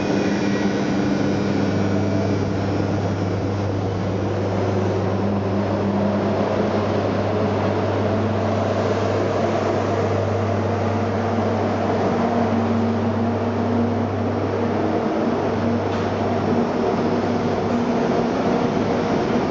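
SNCF BB 15000-class electric locomotive No. 15020 pulling a passenger train out of the station, its coaches rolling past: a loud, steady electric hum with a few held low tones.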